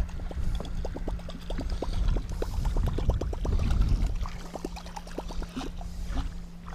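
Water lapping and sloshing against the side of a fishing boat, with a quick run of light ticks from baitcasting reels being cranked during a boatside figure-eight. The wash swells in the middle, and the ticking fades out in the last couple of seconds.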